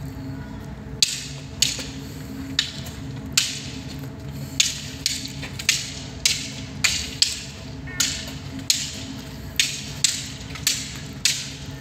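A run of sharp wooden clacks, roughly two a second, from sticks striking in a stick-fighting game. They start about a second in, over a low steady hum.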